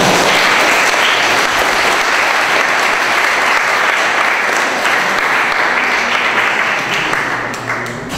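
Audience applauding, loud and steady, easing off slightly near the end.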